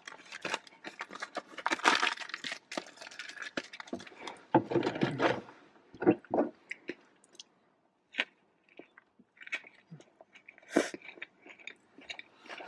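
Close-up chewing and crunching of food in the mouth, irregular crunches and small clicks, with a brief pause about eight seconds in.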